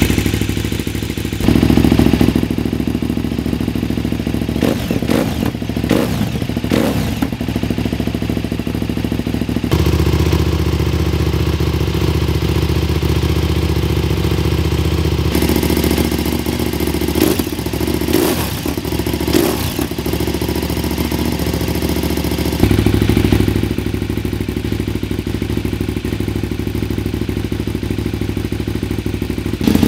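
2006 KTM 990 Super Duke's V-twin engine running through Akrapovic slip-on silencers, mostly idling, with a few quick throttle blips twice. The tone jumps abruptly several times.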